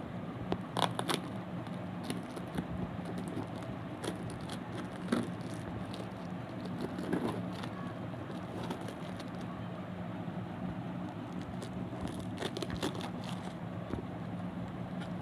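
Packaging being handled and opened, with short crackles and scrapes now and then, over a steady low hum.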